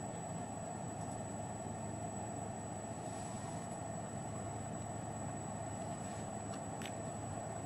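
Steady low hum and hiss of background noise, with a faint click or two.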